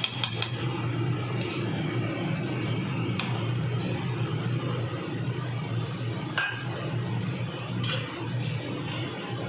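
Metal spoon clinking and scraping against a steel kadhai of sauce on a gas stove: a quick run of clinks at the start, then a few single clinks, over a steady low hum.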